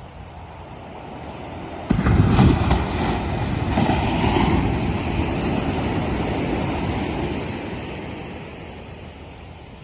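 Ocean wave breaking on the beach: a sudden crash about two seconds in, then the wash of surf running on loudly for several seconds and slowly fading, over a steady surf hiss.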